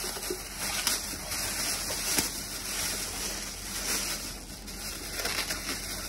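Plastic wrapping crinkling and rustling as it is handled and pulled off, with a few sharper crackles.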